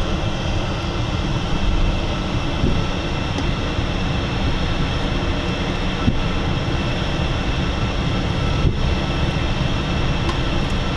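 Cockpit noise of an Embraer Phenom 300 taxiing, its twin Pratt & Whitney PW535E turbofans running at low taxi power. There is a steady whine over a low rumble, with a couple of faint bumps from the rolling gear.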